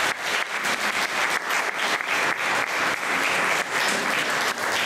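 Audience applauding: dense, steady clapping from many people in a hall.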